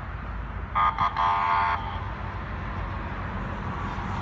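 A vehicle horn sounds about a second in, two quick toots and then a longer blast, over a steady rumble of road traffic.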